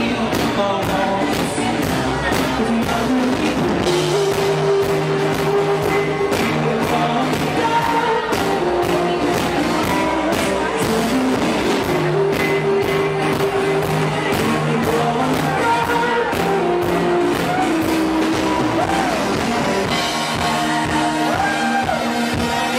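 Live rock band playing a song with singing over a steady drum beat. The sound is loud and badly distorted, recorded right next to the PA speakers.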